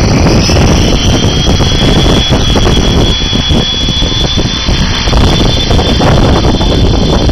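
Align T-Rex 700E electric RC helicopter spooling up and lifting off: a high motor-and-rotor whine that rises briefly at the start and then holds steady, over a loud low rush of rotor wash.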